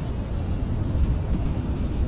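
Blizzard wind blowing steadily: a deep, rumbling roar with a hiss above it, unbroken and even in level.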